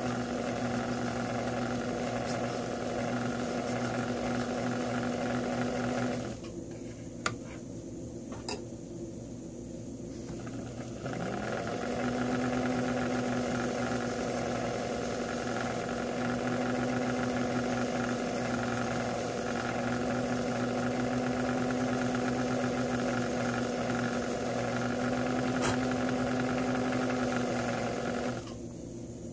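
Small watchmaker's lathe motor humming steadily as it spins a steel screw blank being filed and turned with a graver. It stops about six seconds in, with a couple of light clicks while it is off, spins back up around eleven seconds, and runs until it stops near the end.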